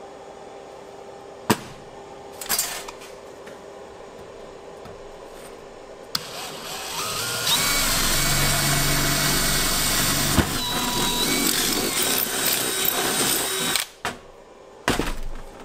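DeWalt cordless drill boring a hole into a small metal cannon barrel: it starts about six seconds in, runs steadily at full speed for about seven seconds with a motor whine over the cutting noise, then stops, with a short second burst near the end. A sharp click and a knock come first, over a low steady hum.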